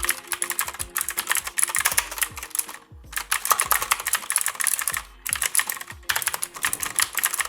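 Fast typing on a Mistel Barocco MD600 mechanical keyboard with Cherry MX Blue switches on a metal plate in a plastic case: rapid clicky keystrokes in runs, with brief pauses about three and five seconds in.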